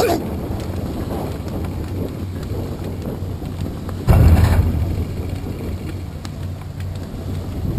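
Wind buffeting a GoPro camera's microphone, a steady low rumble with one stronger gust about four seconds in.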